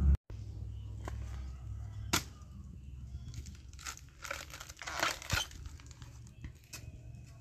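Dry bamboo leaves and papery shoot sheaths crackling and tearing as a fresh bamboo shoot is harvested from the base of the clump. A few sharp knocks sound, the loudest about two seconds in, and a burst of crackling comes near the middle.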